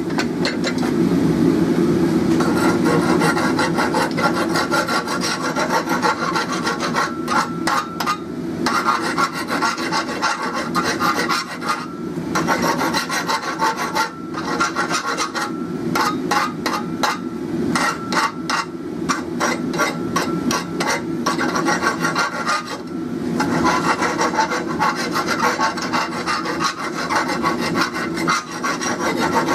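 Hand file rasping over a forged steel hook clamped in a leg vise, in repeated back-and-forth strokes, over a steady low rush.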